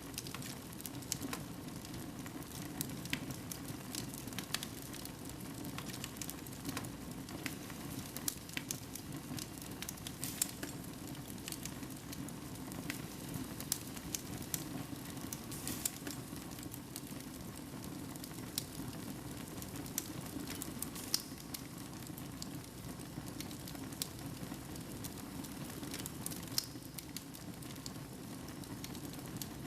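Wood fire burning in a fireplace: irregular sharp crackles and pops over a steady low rush of flame.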